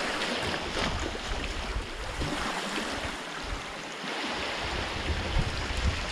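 Seawater washing and lapping against shoreline rocks as a steady hiss, with wind rumbling on the microphone, more so in the second half.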